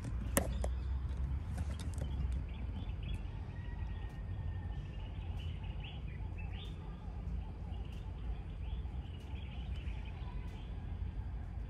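Birds chirping and calling outdoors at dawn: scattered short high chirps and a thin held whistle a few seconds in, over a steady low rumble. A single sharp click about half a second in.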